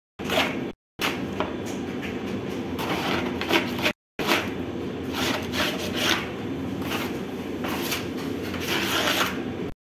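Repeated scraping and rubbing strokes of a hand scraper against the inside of a large dough-mixing tub as leftover bread dough is gathered up, over a steady low hum. The sound cuts out briefly twice.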